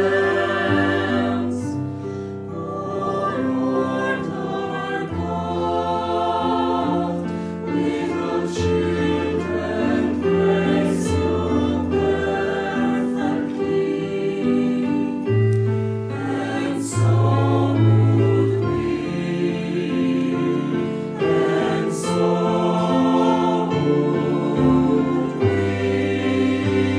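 Mixed choir of women's and men's voices singing a Polish Christmas carol (kolęda) in sustained, held chords, with a few short hissed consonants.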